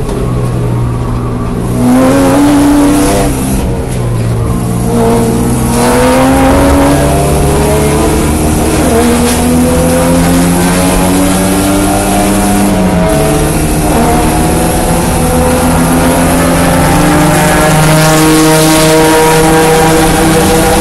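A 1987 Porsche 924S race car's 2.5-litre four-cylinder engine pulling hard under acceleration. After a steadier stretch at the start, its pitch climbs for several seconds, drops sharply once at an upshift about two-thirds of the way through, then climbs again.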